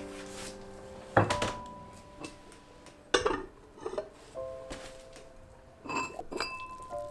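Dark earthenware pot and dishes set down on a wooden table: a few separate knocks and clinks, the loudest about a second in and three seconds in, more near the six-second mark, over soft piano music.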